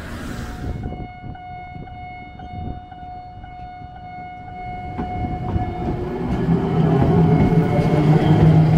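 Railway level-crossing warning bell sounding steadily, then a train approaching with a rumble that grows louder from about six seconds in.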